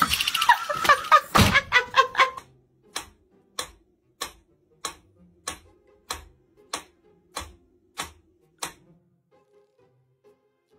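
Mechanical pendulum metronome ticking steadily, about ten ticks at a little under two a second, then stopping. The first two seconds hold a pitched, pulsing sound.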